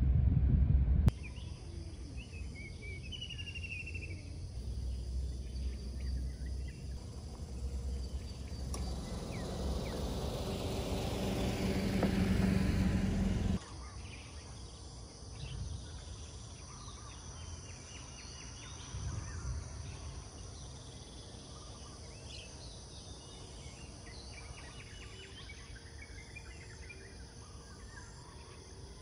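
Low road-traffic rumble builds to a louder rush of noise and cuts off suddenly about halfway through. The second half is a quieter outdoor background of insects with occasional bird chirps.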